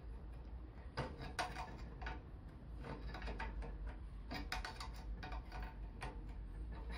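Faint, irregular light metal clicks as locking grips clamped on a welded-on washer turn a freed snapped bleed nipple out of a motorcycle brake caliper.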